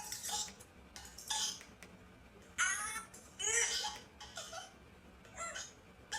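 Giggling and short breathy voice sounds, coming in about six separate bursts with quiet gaps between them.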